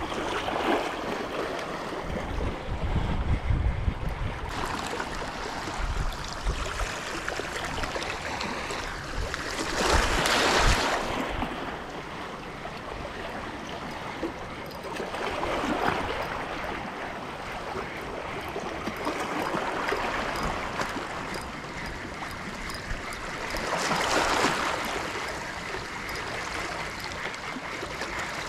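Small waves lapping and washing against shoreline rocks, swelling louder every few seconds, with a low rumble of wind on the microphone in the first few seconds.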